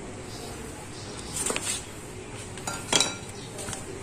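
Metal hand tools clinking and tapping against each other and on the engine: a few light, sharp metallic clinks about a second and a half in and again around three seconds.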